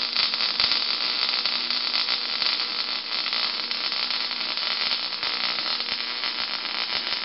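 Wire-feed welder's arc crackling steadily as a bead is run on a steel square-tube frame.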